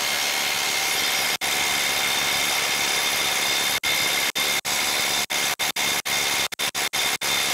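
Ryobi HP 3/8-inch cordless impact wrench running and hammering on a nut torqued to 190 ft-lb that it cannot break loose. Steady impacting with a high whine, cutting out briefly many times in the second half.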